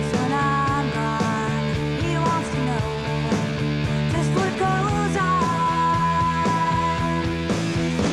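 Rock music soundtrack: electric guitars over a steady drum beat, with a lead line that holds one long high note in the second half.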